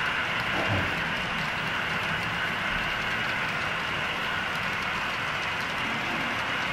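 Model train cars rolling past on layout track: a steady running noise of wheels on rail.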